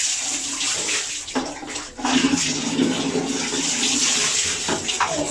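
Water running and splashing as a small child is wet down by hand during a bath.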